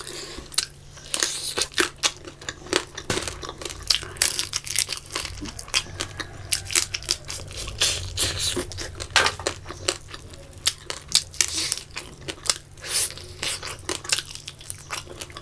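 Close-miked eating by hand: a person biting, tearing and chewing pieces of fried fish, with irregular sharp crunches, clicks and mouth smacks.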